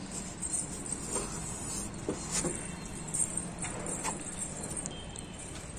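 Quiet outdoor background noise with a steady low hum, broken by a handful of light, scattered taps and knocks.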